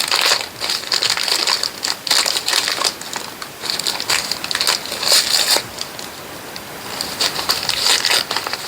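Small plastic packaging bag crinkling and rustling loudly in irregular bursts as it is handled and opened.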